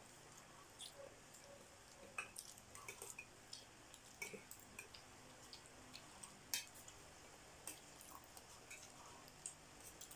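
Faint eating sounds: spoons and forks clinking and scraping on metal plates in scattered, irregular clicks, the sharpest about six and a half seconds in.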